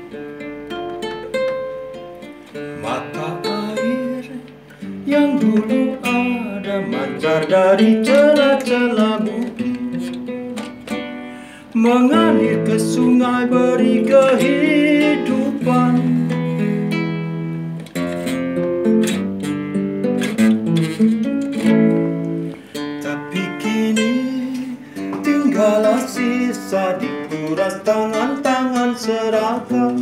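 Nylon-string classical guitar fingerpicked and strummed, a slow song, with a man's voice singing along and wavering on held notes.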